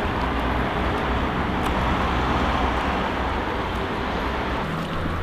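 Steady wash of water and wind noise on the microphone while a kayak is paddled along, with a low rumble underneath.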